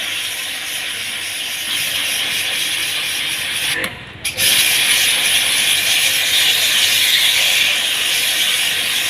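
Water jet spraying during a window air conditioner's water service, a steady hiss that cuts off briefly about four seconds in and then resumes.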